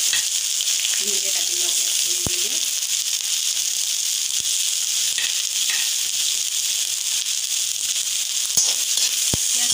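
Chopped onions sizzling steadily in hot oil in a metal wok, freshly added and frying. Occasional clicks of a metal slotted spatula against the pan.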